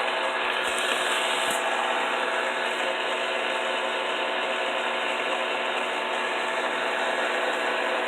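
Electric kitchen mixer's motor running steadily at speed, a constant whirring whine with several steady tones over a noisy hum.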